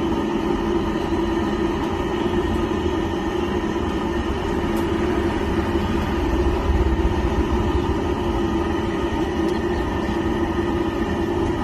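Steady, unbroken vehicle noise with a constant low hum.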